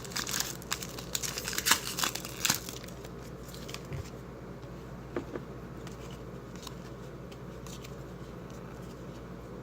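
Wrapper of a trading card pack crinkling and tearing as it is opened, busiest for the first two to three seconds, followed by a few faint scattered ticks.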